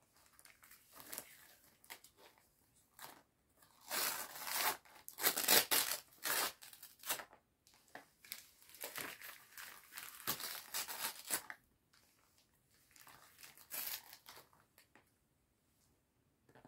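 Gift wrapping paper being torn and crinkled by hand as a small present is unwrapped, in a few separate spells, loudest about four to seven seconds in.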